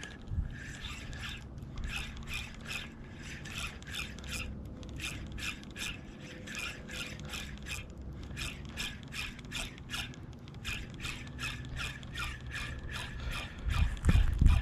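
Fishing reel being cranked steadily, its gears ticking in an even rhythm about three times a second. A louder low rumble comes in near the end.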